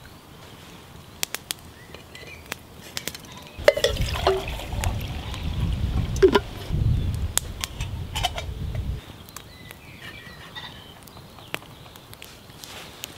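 Water glugging out of a metal water bottle into a metal mug hung over a campfire, starting about three and a half seconds in and lasting some five seconds. Sharp crackles from the burning wood come and go around it.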